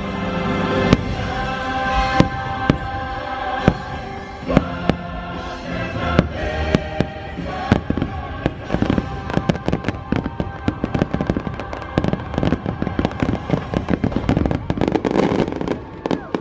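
Fireworks bursting over a fireworks show's music soundtrack, sharp bangs popping every second or so at first, then coming much faster and denser in the second half.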